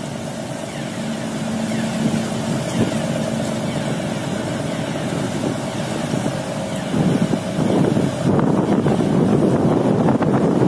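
A large car ferry gets under way: a steady engine hum over the rush of propeller wash churning the harbour water. The churning grows louder and rougher from about seven seconds in, with wind buffeting the microphone.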